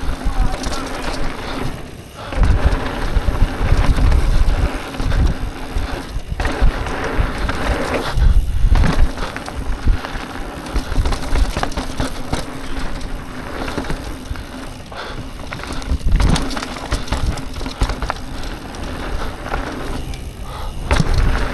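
Mountain bike riding fast down a dirt jump trail: tyres rolling and skidding on dirt, the bike rattling over bumps and landings, and wind buffeting the microphone, with a steady low hum underneath and short lulls every few seconds.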